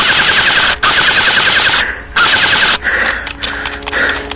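Airsoft gun firing three bursts of fully automatic fire, each about a second long, with a rapid mechanical rattle, within the first three seconds.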